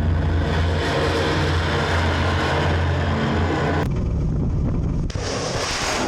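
Steady loud rumble and hiss from a Kalibr cruise missile launch, following the launch blast, with a strong low hum underneath. The sound changes abruptly about four seconds in and again about five seconds in.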